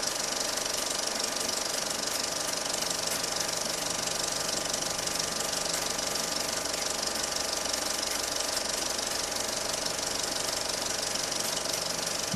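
Film projector running: a steady, rapid mechanical clatter of the film transport, unchanging throughout.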